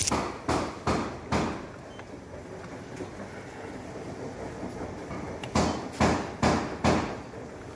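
Footsteps on a hard floor: about four steps at roughly two a second, a pause with only low steady room noise, then four more steps near the end.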